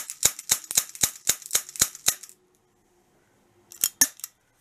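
Glock 19 BB pistol firing a quick string of about nine sharp shots, about four a second, stopping about two seconds in; a few more sharp clicks come near the end.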